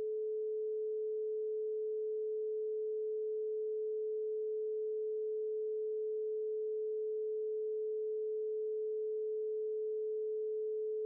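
A single electronically generated sine tone held perfectly steady at one mid pitch, a brainwave-entrainment tone, with no other sound.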